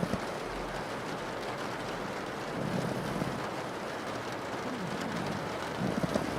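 Steady rain on a window, with a pug snoring in low, rough breaths that rise over the rain every couple of seconds.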